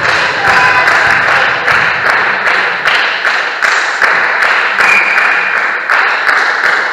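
Group of people clapping in a steady rhythm, about two claps a second, echoing in a large sports hall.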